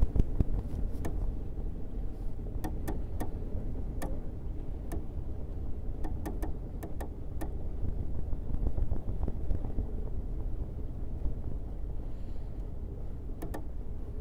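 Low rumble of wind buffeting the microphone aboard a sailing ship under way, with scattered sharp clicks and ticks.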